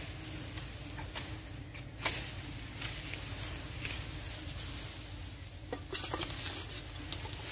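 Outdoor ambience: a steady low wind rumble on the microphone, with a few light clicks and rustles of leaves about one, two and six seconds in.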